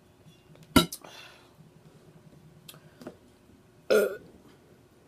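A woman's little burps: a sharp one about a second in and a longer, pitched one about four seconds in, with faint mouth clicks between.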